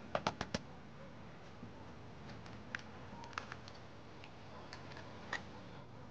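An egg tapped sharply four times in quick succession against a hard edge to crack its shell, followed by a few fainter, scattered clicks.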